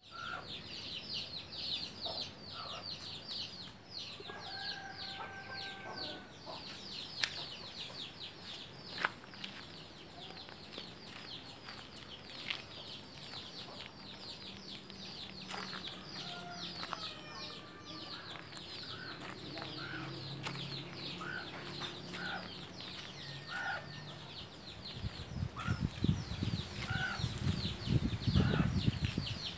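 Birds chirping in a rapid, continuous high chatter, with scattered lower clucking calls of chickens. A low rumbling noise rises over the last few seconds.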